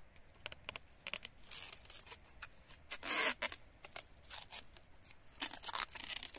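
Plastic stretch film crackling and rustling as it is pulled and wrapped tight around a grafted mulberry stem, with three longer rasping rustles and small crackles between.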